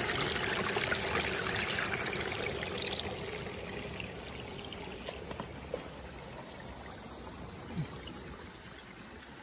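Water running out of the mouth of a white plastic pipe and splashing into a muddy pool. It is loudest at the start and slowly grows quieter.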